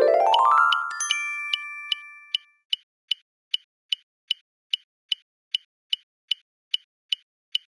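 Cartoon sound effects: a quick rising run of bell-like notes that rings on and fades, then an even ticking, about two and a half ticks a second.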